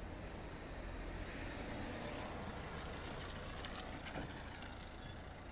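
A car driving over a railway level crossing towards the listener: faint engine and tyre noise over a steady outdoor hum.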